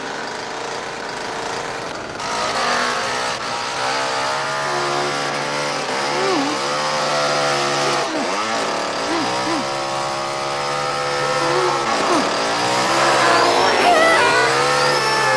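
Two-stroke chainsaw running and revving up and down, getting louder about two seconds in, with a man screaming over it.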